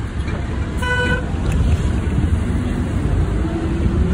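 City street traffic: a steady low rumble with wind on the microphone, a short vehicle horn beep about a second in, and an engine note rising slowly in pitch over the last second or so as a vehicle speeds up.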